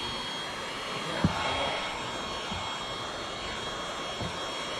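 Heat gun blowing steadily on automotive window tint film laid over a windshield, heating the film to shrink it to the glass's curve. There is a light knock about a second in.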